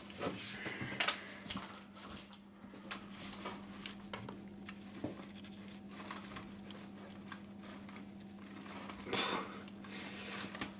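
Epoxy jug's pump dispenser being pressed repeatedly into a metal can: scattered light clicks and small knocks from the plunger and the can, over a steady low hum.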